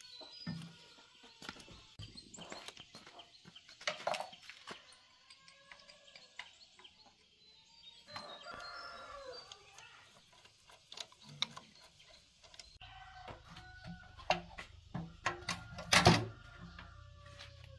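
Clinks and knocks of hand tools and metal parts being handled on a small single-cylinder diesel engine, with a sharp knock about four seconds in and the loudest one near the end. A chicken calls in the background about eight seconds in.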